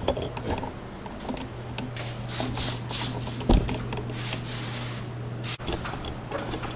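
Aerosol can of white lithium grease spraying in a string of short hissing bursts, with one longer spray about four seconds in. A single sharp thump about three and a half seconds in, over a steady low hum.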